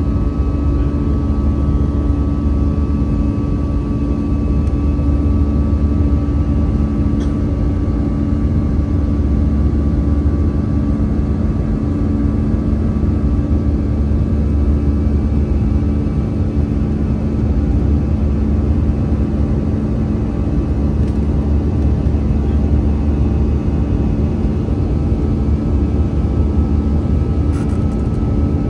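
Cabin noise of an Airbus A320-214 in flight heard at a window seat over the wing: the steady drone of its CFM56 turbofan engines and rushing air, a deep rumble with a few steady humming tones over it.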